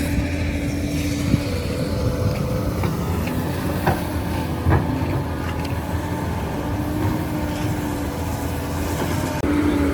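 Heavy construction machine's diesel engine running steadily, with a few sharp knocks.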